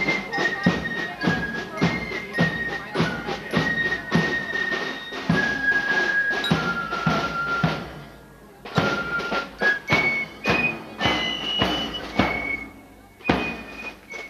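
Fife-and-drum marching band playing a march. High flutes carry the melody in held notes over steady drum beats, about two a second, with a short lull about eight seconds in.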